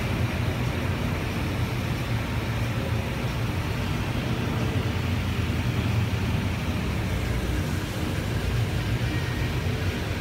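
Automatic car wash tunnel with high-pressure water jets (about 800 psi) blasting a pickup truck and the wash machinery and brushes running, a steady rush of spray over a low hum. Heard from inside a following car through its wet window.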